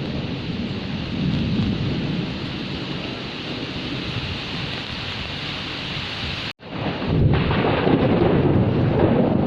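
Steady heavy rain with a low rumble of thunder. About two-thirds through the sound cuts out for an instant, then comes back louder with a deeper rumble.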